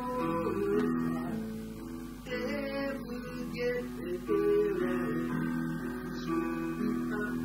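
Live acoustic music: a steel-string acoustic guitar strummed in chords together with a Roland FP-50 digital piano, the chords changing about every second.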